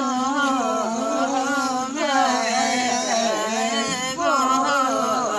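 Unaccompanied singing of a Limbu palam, a voice holding long, wavering notes with short breaks about two and four seconds in.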